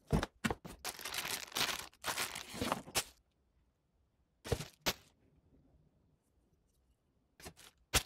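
Cardboard packaging of an electric fan being pulled and torn apart, a run of short scraping rasps over the first three seconds. Then a few light knocks as parts are handled: a pair about halfway through and another pair near the end.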